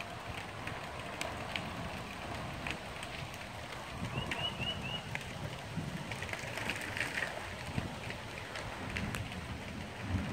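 Steady rushing outdoor noise as a storm front moves in, with scattered light ticks and a low rumble. A bird chirps three quick notes about four seconds in, and chirps again briefly near the middle.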